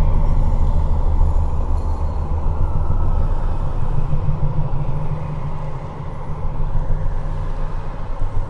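Dark horror ambience: a heavy, churning low rumble with faint sustained tones above it, easing a little about six seconds in before swelling again.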